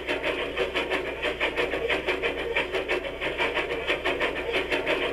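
Recorded steam locomotive chuffing in a quick, even rhythm: the 'Steam Train' nature sound played back through the small speaker of a Homedics Sound Spa clock radio.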